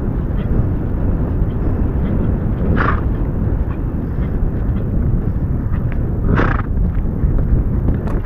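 Wind rumbling on a camera microphone worn by a rider on a horse moving across grass, with the horse's faint hoofbeats. Two short, breathy rushes of noise stand out, about three and a half seconds apart.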